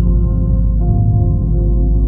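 Calm ambient music: long, ringing, bowl-like tones held over a steady low drone, with a new tone coming in a little under a second in.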